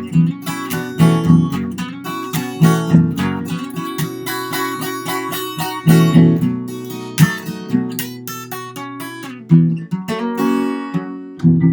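Acoustic guitar played fingerstyle, with picked treble notes over ringing bass notes in a country-blues style.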